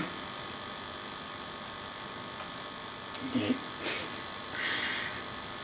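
Steady electrical hum and hiss of room tone, with thin high tones running through it. A few faint short sounds come between about three and five seconds in: a click, a brief low murmur and two soft puffs of noise.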